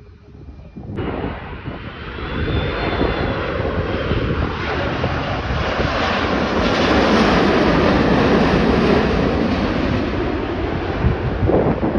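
Boeing 787 Dreamliner passing low overhead on final approach with its gear down. The jet noise starts abruptly about a second in and swells to a loud, steady rush, with a faint high whine a couple of seconds in.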